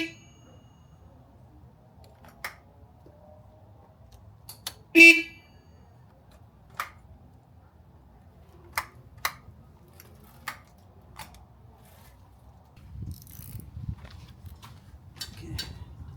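Motorcycle electric horn on a 1954 BMW R25/3 giving one short beep about five seconds in, working off the new battery, with a few sharp clicks before and after. Low rumbling handling noise near the end.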